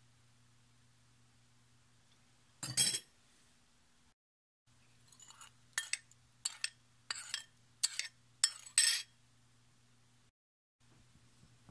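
Metal teaspoon clinking against a porcelain bowl as a soy sauce mixture is stirred: one clink a little under three seconds in, then a quick run of about ten clinks over the next few seconds. A faint steady hum runs underneath.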